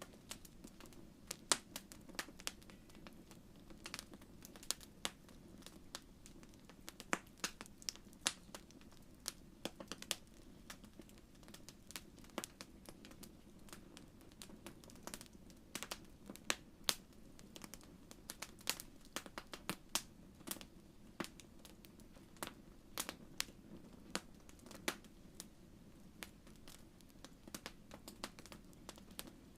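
Wood fire crackling in a fireplace: irregular sharp pops and snaps over a soft, steady low hiss of the burning.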